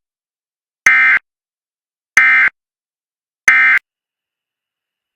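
Emergency Alert System end-of-message code: three identical short bursts of raspy digital data tones, each about a third of a second long and a little over a second apart. These signal that the warning broadcast has ended.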